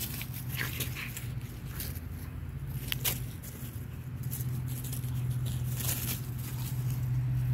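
Frenchton puppy scampering through dry fallen leaves on grass: scattered light rustles and crackles. A steady low hum runs underneath.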